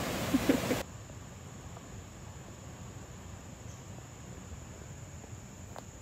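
A brief bit of voice cut off abruptly about a second in, then steady woodland ambience with a thin, constant high-pitched insect drone.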